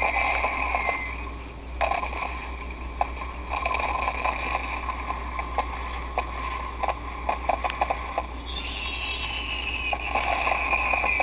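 Hallmark Magic Washington Monument ornament playing its electronic fireworks sound: a whistle falling in pitch, then a string of crackling pops, then the falling whistle again near the end, over a low steady hum.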